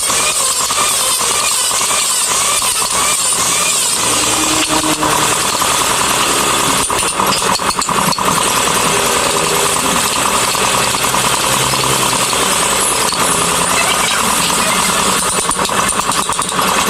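A woodworking power tool running steadily and loudly; a lower droning note joins about four seconds in.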